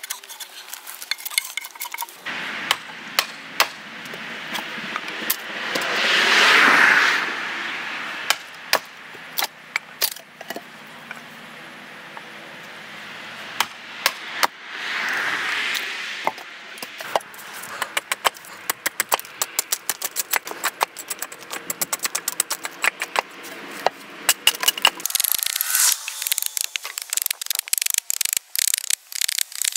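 Hand tools splitting and shaping sassafras wood. A blade is struck down into the end of a board with repeated sharp knocks, and twice the wood splits apart with a longer crackling rip. Near the end come quick hatchet strikes, trimming a split board on a chopping stump.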